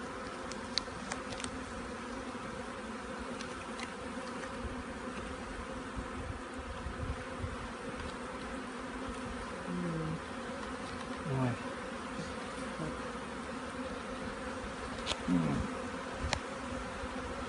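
Honeybees buzzing around an open hive: a steady, even hum from the mass of bees, with now and then a single bee passing close, its buzz bending in pitch. A few faint clicks sound over it.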